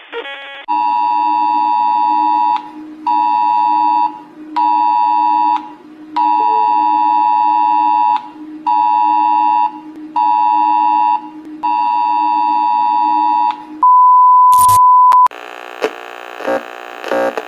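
Emergency-alert attention signal of the kind sent to phones (RO-ALERT/cell-broadcast style): a two-tone beep in the pattern long, short, short, repeated, ending on a long beep, over a low steady drone. It is followed by a steady single tone for about a second and a half, a click, and then a harsh buzzing alert tone with brief breaks.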